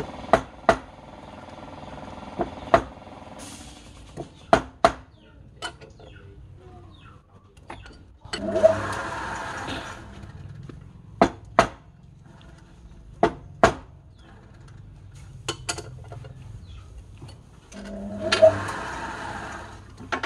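Homemade wood lathe being set up with a square wooden blank: sharp knocks, mostly in pairs, as the blank is tapped into place between the centres. The lathe runs twice for about two seconds, spinning the blank up with a rising whine, and a steady hum at the start fades out within the first few seconds.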